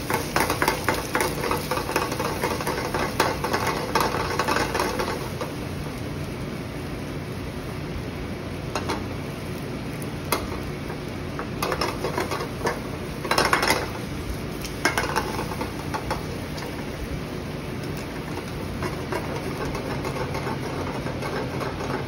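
Rapid rattling and scraping of a small metal omelet pan shaken on a gas range grate while wooden chopsticks stir the eggs, busiest for about the first five seconds, then a few scattered taps and scrapes, the loudest cluster about two-thirds of the way through. A steady mechanical kitchen hum runs underneath.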